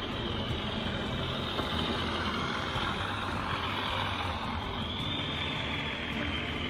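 Class 37 diesel-electric locomotive sound: the engine running steadily under power, with a high whine over it that rises and then eases off near the end.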